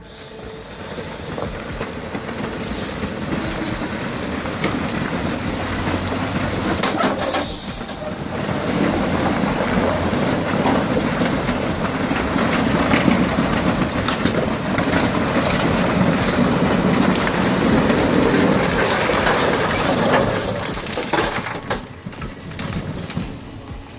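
Heavy logging truck running with a loud, steady rumble and rush that swells about eight seconds in and eases off near the end.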